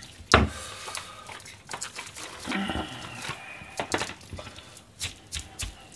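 A cleaver knocks once, sharply, on a plastic cutting board just after the start. Quieter handling clicks follow as maitake mushrooms are added to the minced gyoza filling, with a brief low hum-like sound about halfway through.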